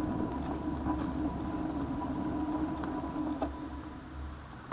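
Bicycle rolling on pavement, picked up by a camera mounted on the bike: steady tyre, road and wind noise with a constant hum and a few small rattles, growing quieter near the end.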